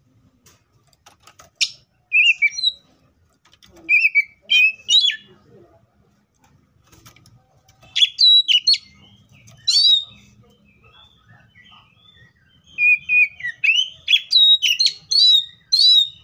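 Oriental magpie-robin singing: bursts of loud, sharp whistled notes that slide up and down, with short pauses between phrases.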